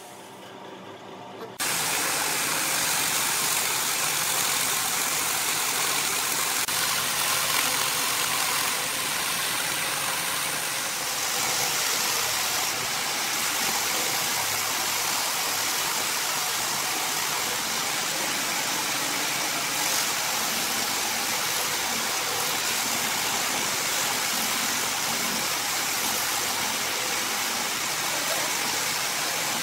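Angle grinder driving a homemade belt-sander attachment, running steadily with the abrasive belt sanding a wooden block. The noise comes in abruptly about a second and a half in and holds steady.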